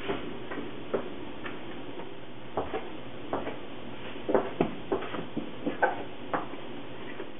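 Scattered sharp taps and knocks of a metal bench scraper and hands on a wooden butcher-block bench as baguette dough is stretched and cut into pieces, most of them a little past the middle, over a steady background hum.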